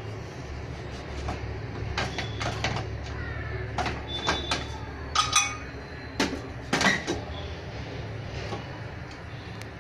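Aluminium pressure cooker lid being twisted open by its handle once the steam has gone: a series of metal clinks, scrapes and sharp knocks of lid against pot rim, some with a brief ring, over a low steady hum.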